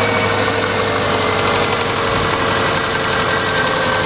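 Subaru 2.2-litre flat-four engine idling steadily but rough, with a misfire that the customer believes comes from a burnt valve.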